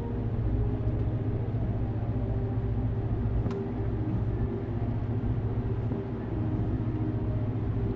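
Steady low rumble of the outdoor burner's flame under the cast iron pot, with a faint tick about three and a half seconds in.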